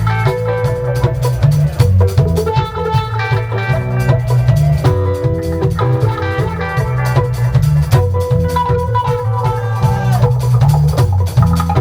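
Lovers rock reggae band playing an instrumental passage: a prominent bass line under drum kit and guitar, with no vocals.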